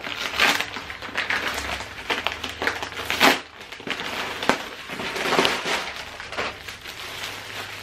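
Brown paper mailer bag being pulled open and crumpled by hand, an irregular paper rustle and crackle with a few sharper crunches. Near the end, the clear plastic wrap of a shirt crinkles as it is lifted out.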